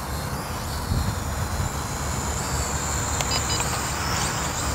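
WLtoys Q222 toy quadcopter flying, its gear-driven motors and propellers giving a faint, steady high whine over a low, steady outdoor rumble. A few short high chirps sound just past the middle.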